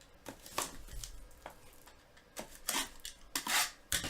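Trading-card packs and cards being handled at a table: scattered clicks and taps with short crinkling rustles of pack wrappers, a cluster of them a little past halfway and again near the end.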